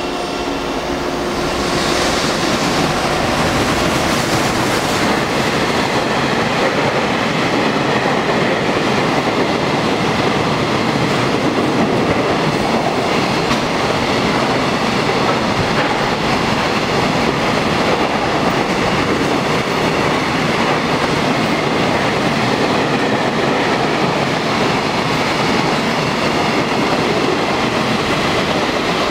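JR Freight EF210 electric locomotive and a long train of container wagons running through a station at speed without stopping: a loud, steady noise of wheels on rail that builds over the first couple of seconds as the locomotive arrives, then holds as the wagons pass, under a concrete station roof.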